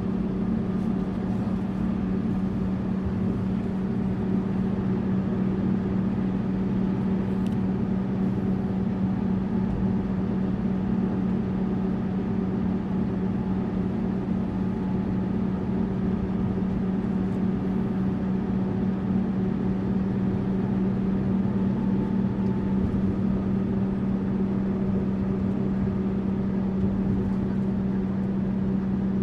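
Tourist bus travelling at a steady speed: an even engine drone with road noise that does not change.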